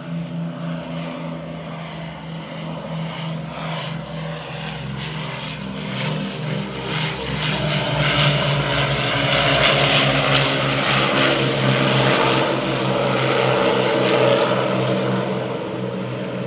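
Avro Lancaster's four Rolls-Royce Merlin V12 engines running as the bomber makes a low pass, growing louder to a peak through the middle of the pass and easing slightly near the end.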